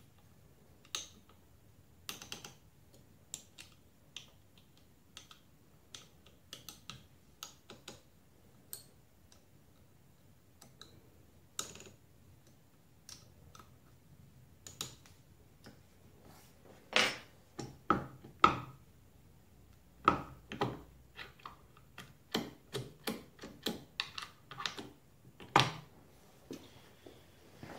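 Irregular clicks and light metallic taps of a steel hex key turning and seating in the socket-head bolts of an aluminium spindle mount. The clicks are sparse at first and come faster and louder in the second half.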